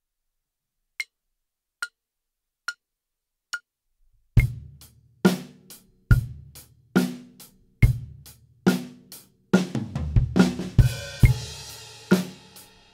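Four metronome clicks at about 70 beats a minute count in an acoustic drum kit. The kit then plays a kick, snare and hi-hat groove. About ten seconds in comes a sixteenth-note fill: snare, rack tom, floor tom and bass drum in sequence, then a flam accent ending on an open hi-hat with kick, whose wash rings on near the end.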